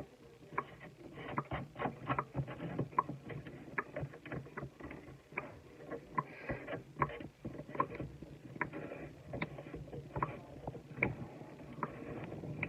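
Irregular light clicks and knocks, a few a second, of a new plastic sink drain being handled, slid down into the basin opening and screwed together.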